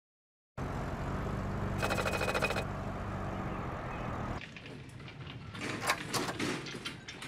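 A car's engine running steadily over an outdoor night ambience, coming in suddenly about half a second in, with a brief rapid rattle about two seconds in. After a cut a little past four seconds, a quieter indoor stretch with scattered clicks and knocks.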